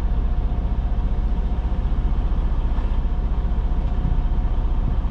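Semi truck's diesel engine idling steadily, heard from inside the cab as a constant low, rapidly pulsing throb.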